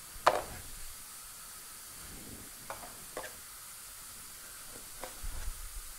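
Knife knocking on a plastic cutting board while limes are cut: one sharp knock just after the start, then a few lighter knocks in the middle and near the end, over a faint steady hiss.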